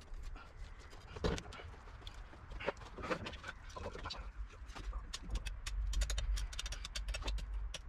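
Wet tearing and squelching as the guts of a large blue-eye trevalla are pulled out by hand, with a dense run of quick crackling clicks in the second half over a low rumble.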